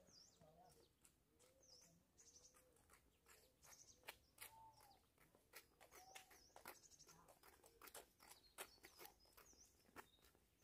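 Faint birds chirping, repeated short high chirps with a few lower calls, and light footsteps on a dirt road that come more often in the second half.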